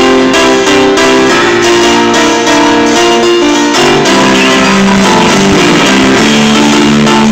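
A live rock band playing loudly: electric guitars and keyboards sounding sustained chords over a steady drum beat.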